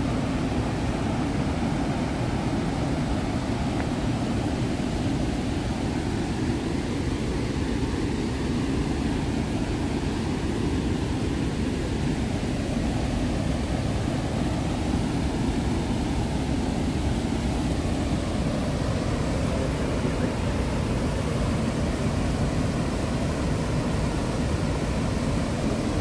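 Steady rushing of the Manavgat Waterfall, river water pouring over a low, wide rock step and churning through rapids.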